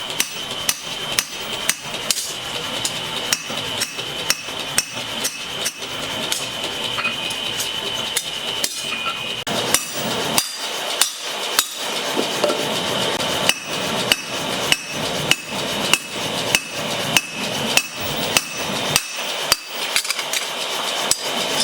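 Blacksmith's hand hammer forging metal on an anvil, a steady run of blows about two a second, each with a metallic ring, over a steady background noise.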